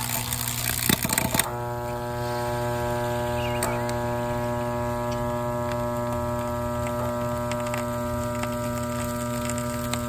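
A few clicks and rattles in the first second and a half, then the vintage Arctic Aire box fan's electric motor humming steadily with its rotor not turning: a stalled motor overheating and smoking as it burns out.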